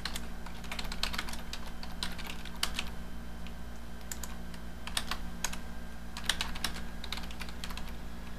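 Typing on a computer keyboard: irregular bursts of keystrokes, with a steady low hum underneath.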